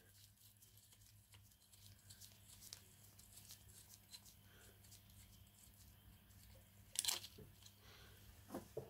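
Near silence with faint handling noises from gloved fingers working at the bottom of a small-engine carburetor and its linkage: small scattered clicks and rustles, and one sharper click about seven seconds in. A low steady hum runs underneath.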